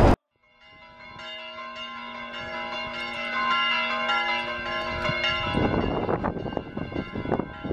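Church bells ringing across a town, several bells sounding together with long sustained ringing tones that fade in after a brief silence. About five and a half seconds in, a low irregular rumble takes over as the ringing dies away.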